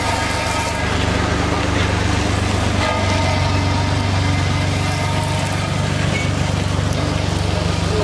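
Road roller's diesel engine running steadily as its steel drum rolls over a bag of dry macaroni.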